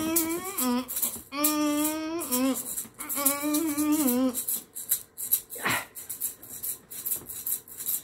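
A man humming a tune with a wavering vibrato while shaking a maraca in a steady rhythm. The humming stops about four seconds in and the maraca shaking carries on, with a brief sliding sound falling in pitch just before six seconds.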